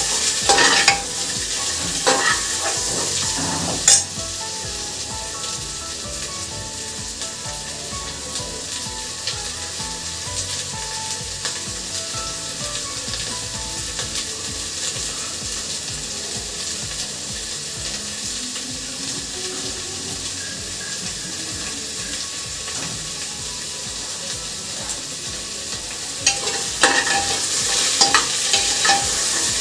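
Food frying and sizzling in hot oil in an aluminium pressure cooker, with a metal ladle stirring and scraping against the pot for the first few seconds and again near the end. About four seconds in there is one sharp metallic clack, and in between the sizzle goes on steadily.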